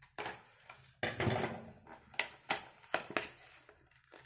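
A small cardboard retail box being opened by hand: rustling and scraping, then several sharp snaps and clicks of card as the flaps and insert come free.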